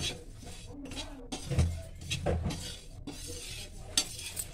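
A metal slotted spoon stirring and scraping dry sesame seeds around a metal kadhai, with scattered clinks and knocks of metal on the pan. The seeds are being dry-roasted without oil and are not yet popping.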